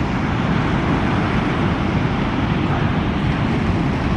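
Steady low rumble of breaking surf, even and unbroken.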